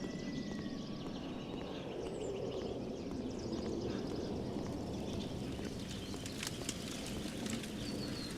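Outdoor nature ambience: a steady background noise with occasional bird chirps, and a few sharp clicks in the second half.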